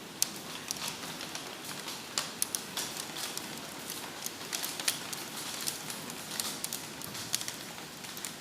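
Hail falling with rain: a steady hiss of rain with irregular sharp ticks and clicks of hailstones striking hard surfaces.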